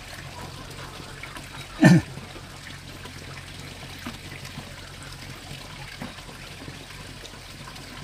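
Water trickling steadily, with one short, loud low thud about two seconds in.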